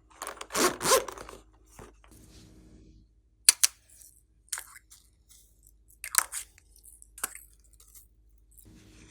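Slime being worked by hand in close-up: a squishing stretch about half a second in, then a few sharp clicks and pops spaced roughly a second apart as it is pressed and pulled.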